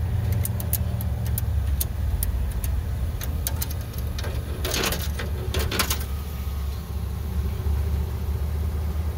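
Payphone keypad buttons clicking under a finger, then coins dropping through the payphone's coin slot in two rattling bursts about four and a half and six seconds in. A steady low vehicle engine rumble runs underneath throughout.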